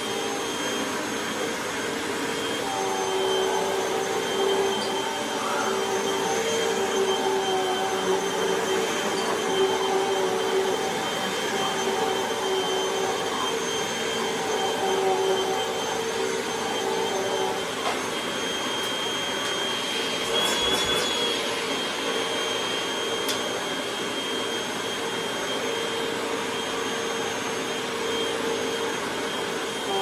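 Hoover WindTunnel Rewind upright vacuum cleaner running on a rug as it is pushed back and forth: a loud, steady rush of air with a motor whine over it, the lower hum wavering slightly with the strokes.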